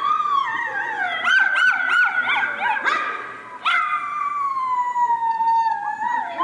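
A small white dog howling: wavering, warbling howls in the first half, then one long howl that slowly falls in pitch.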